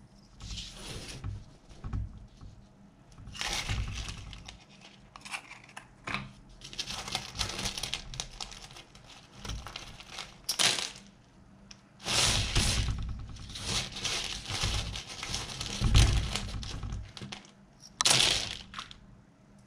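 Loose wooden matchsticks rattling and clicking against each other and rustling on a paper surface as hands gather, bundle and spread a pile of them, in irregular bursts.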